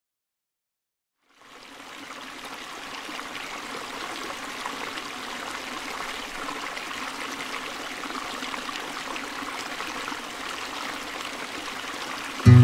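Running water of a stream, fading in after a second or so of silence and then flowing steadily.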